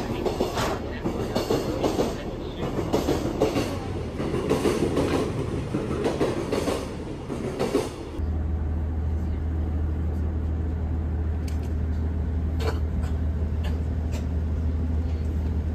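Busy railcar interior for about eight seconds: passengers' footsteps and shuffling with background chatter. Then a sudden change to a steady low hum from the diesel railcar's engine, with a few scattered clicks.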